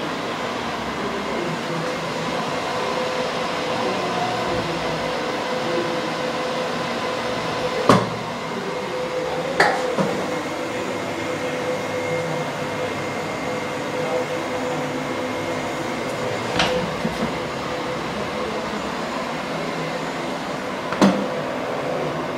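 Cooling fans of a Dell PowerEdge 2950 server and the network gear beside it running steadily, a whir with a steady whine in it. A few sharp knocks are heard through it.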